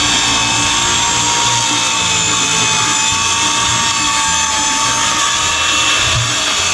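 Electric power saw running steadily with a high whine as it cuts through a wooden board.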